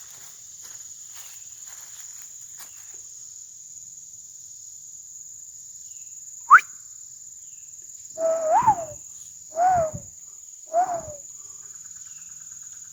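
Steady high drone of insects, with footsteps through leaf litter in the first three seconds and one sharp rising squeak about halfway through. Then three hollow calls, each rising and falling, a little over a second apart: a yellow-billed cuckoo (rain crow) calling.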